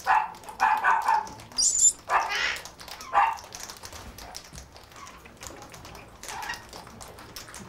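Parrots squawking: a run of short, harsh calls in the first three seconds or so, then one weaker call later among faint rustling.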